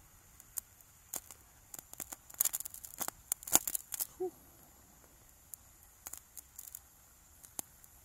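Crackling and popping as an aluminum brazing rod melts into the acetylene torch flame on an aluminum coil tube: a dense run of sharp pops in the first half, then scattered single pops, over a faint steady hiss.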